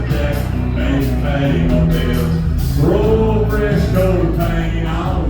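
Music with a man singing over a steady instrumental backing.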